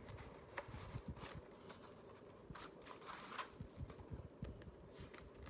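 Faint rustling and soft clicks of hands handling a glittery cosmetic pouch and pulling out a paper card.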